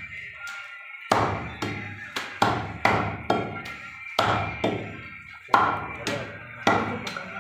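A butcher's cleaver chopping through beef on a chopping block: a run of heavy chopping blows about two a second, each with a short ringing decay, starting about a second in.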